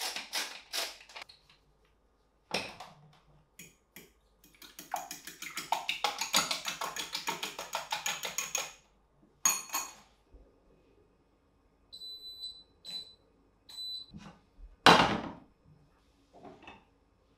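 Salt grinder turning over a glass bowl in regular strokes that stop about a second in. Then eggs are beaten briskly in the glass bowl, with rapid clicking strokes for about four seconds. A few short ringing clinks follow, then one loud knock near the end.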